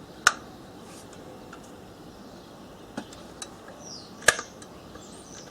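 Sharp clicks of an angle grinder's on-off switch and safety catch being worked three times, the motor not starting: the socket is switched off, so the grinder is getting no power.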